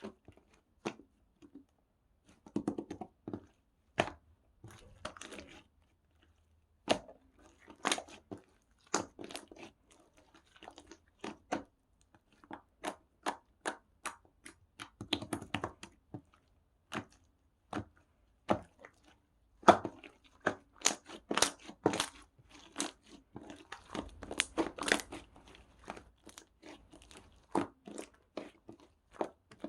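Slime being kneaded and squeezed by hand, making irregular clicks and pops in quick clusters.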